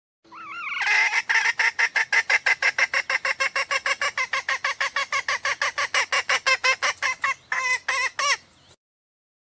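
Female red junglefowl calling: a fast, even series of short notes, about five a second, slowing to a few separate notes near the end before stopping. This is the hen's call to a male.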